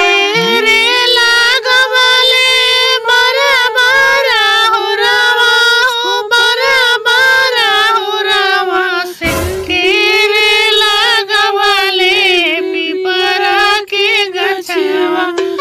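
A single high voice singing a folk song, long held notes that waver and slide in pitch, with almost no pauses between phrases.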